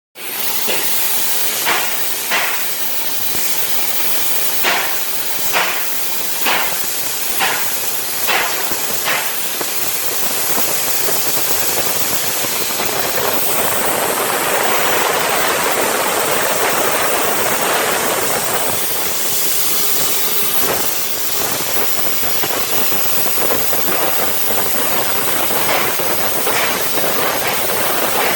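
Hypertherm plasma cutter's arc hissing steadily as a CNC table cuts. There is a run of short, sharp pops roughly once a second during the first nine seconds.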